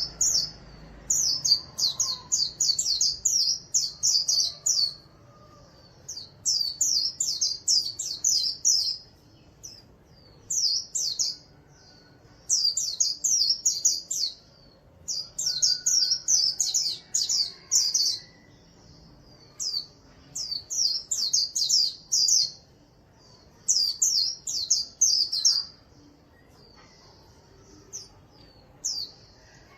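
White-eye (vành khuyên) singing its rapid, high twittering song in about ten bursts of one to three seconds each, with short pauses between.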